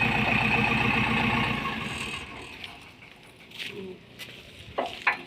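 Backhoe loader's diesel engine idling with an even pulsing beat, then shutting down about two seconds in. A few light clicks and knocks follow.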